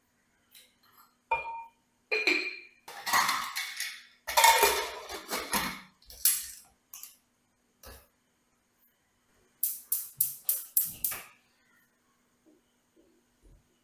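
Kitchen dishes and utensils clattering and clinking as they are handled, followed past the middle by a quick run of about six sharp clicks.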